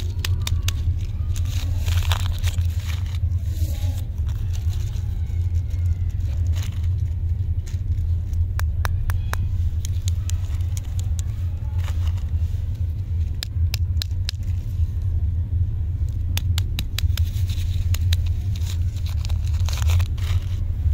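Lollipop wrappers crinkling and tearing as the candies are unwrapped and handled, heard as scattered clusters of sharp crackles. Under them a steady low rumble runs, and it is the loudest sound.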